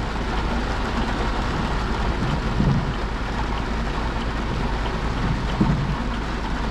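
Heavy rain falling on a moving car, heard from inside, as a steady even hiss over a constant low rumble.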